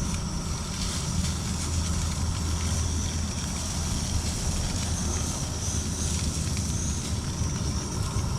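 Crappie fillets sizzling in a hot pan, with a steady low rumble underneath.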